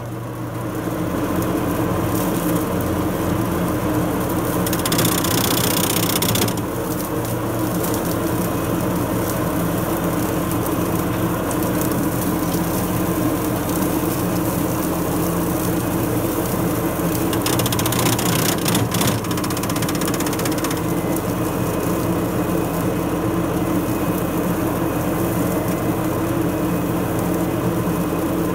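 Ford 6610 tractor's four-cylinder diesel engine running steadily under load, driving a PTO rotary bush mower through its gearbox and belts. A louder rushing noise rises over it twice, about five seconds in and again around eighteen seconds.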